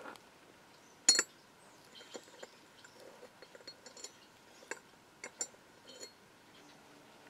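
Skeleton key in the keyhole of an 1890s brass ice box lock: one sharp metal clink about a second in, then a run of lighter metallic clicks as the key is worked and turned in the lock.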